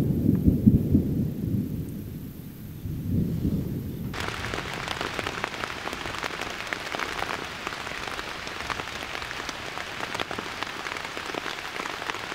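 Low thunder rumbling, dying away over the first two seconds, with another low rumble about three seconds in. About four seconds in, heavy rain takes over, pattering densely on a tent's rain fly.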